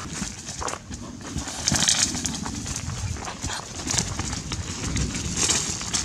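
Dry leaves, twigs and brush rustling and crackling underfoot, with irregular bare footsteps on the ground.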